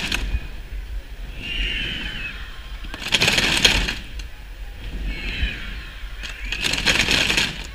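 A crowd of children shaking homemade rattles and shakers made from recycled bottles and tubes, in two rushes about a second long and three and a half seconds apart, playing a 'recycled mascletà' that imitates a firecracker barrage. Children's high voices shout between the rushes.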